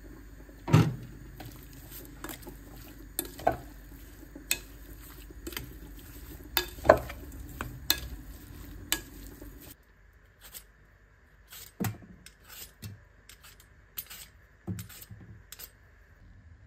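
A silicone spatula knocks and scrapes against a glass mixing bowl as seasoned beef chunks are stirred: irregular sharp clacks over a steady hum, the loudest about a second in and again near seven seconds. About ten seconds in the hum stops, and a vegetable peeler gives fainter, sparse scrapes and clicks on a potato.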